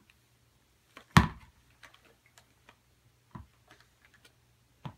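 A large hollow surprise egg thumps down onto a wooden floor about a second in, followed by small clicks and two softer knocks as it is handled.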